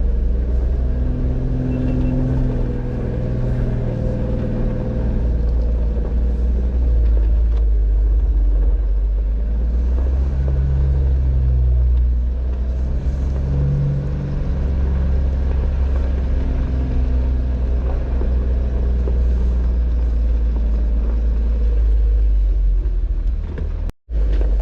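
Off-road Jeep driving on a rough dirt trail: a steady low rumble from the engine and drivetrain, with the engine note rising and falling as the throttle changes.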